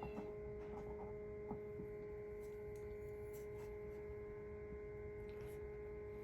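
Faint, steady electrical hum holding one tone, with a few light taps in the first couple of seconds.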